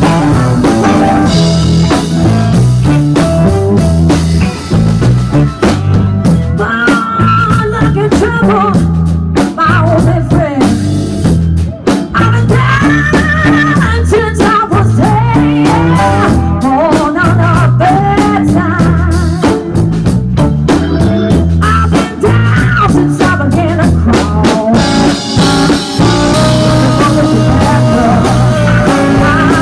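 Live electric guitar, electric bass and drum kit playing blues-rock, loud, with a lead guitar line of bent, wavering notes over a walking bass and busy drums.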